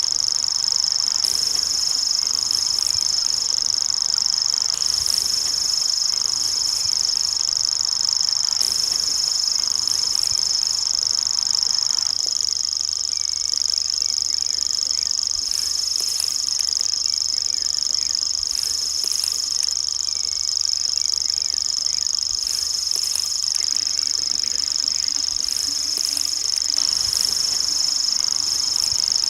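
Common grasshopper warbler reeling: one continuous, high-pitched trill held without a break. The fainter background noise under it drops away about twelve seconds in.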